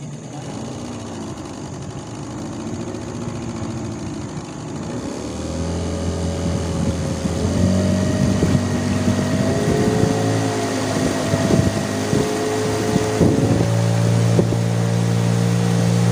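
Small outboard motor driving a boat, speeding up as the boat gets under way: it grows louder about five seconds in, wavers in pitch for several seconds, then settles into a steady drone near the end.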